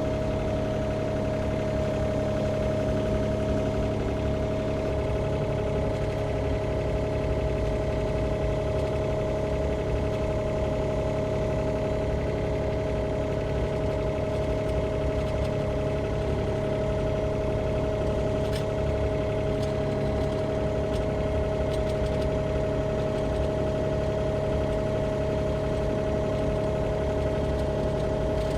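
Sany mini excavator's diesel engine running at a steady speed, with an even hum that does not rise or fall.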